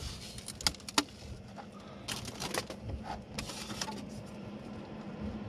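A plastic cooler and the containers inside it being handled: two sharp knocks in the first second, then two short bursts of scraping, over a steady low hum.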